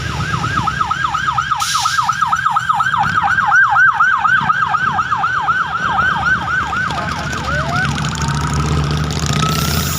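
Electronic siren in a fast yelp, quick falling sweeps about four a second, stopping about eight seconds in; then a single slow rising wail begins. A vehicle engine runs underneath.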